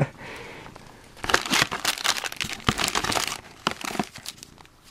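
Plastic packaging bags crinkling and rustling as they are handled and pulled from a cardboard box: a dense run of crackles starting about a second in and tailing off near the end.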